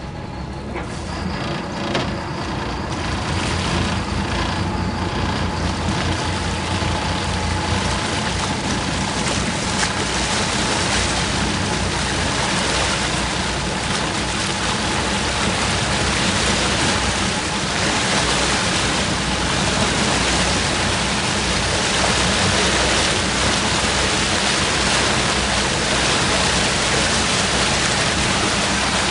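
Boat engine in gear, getting under way, with a steady rush of water. The sound builds over the first few seconds as the boat gathers speed, then holds steady.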